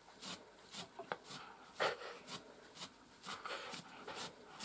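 Hand-stripping tool pulling out a miniature schnauzer's old, overgrown coat in short strokes, about two a second.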